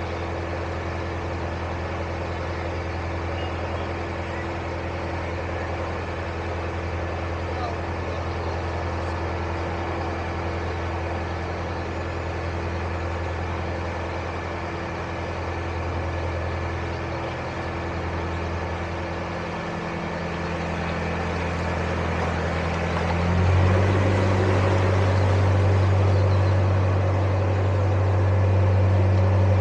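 Narrowboat's diesel engine running steadily under way. About 23 seconds in it revs up a notch, going a little higher and louder, and holds there.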